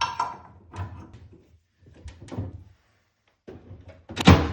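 Knocks and clatter of metal parts being handled and refitted on an Ideal Logic gas boiler during reassembly, with the loudest knock near the end.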